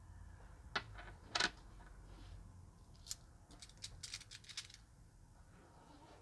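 Euro coins clicking: a 50 cent coin is set down on a table and a handful of coins clinks together in the palm. There are two sharper clicks about a second in, then a run of lighter clicks around three to four and a half seconds.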